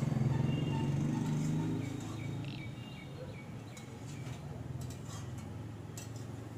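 Metal spatula stirring and scraping chicken and vegetables in a steel kadai, with scattered light clinks against the pan. A low hum under it fades away over the first two seconds.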